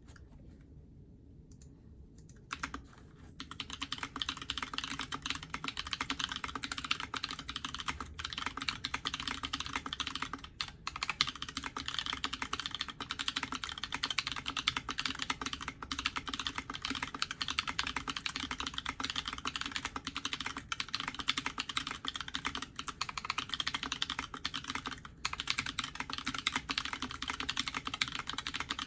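Steady, dense typing on a custom mechanical keyboard: Massdrop Holy Panda tactile switches lubed with 205g0, on a carbon-fibre plate in a frosted acrylic Alice-layout case, with JTK keycaps. The keystrokes start about two and a half seconds in and then run on without a break.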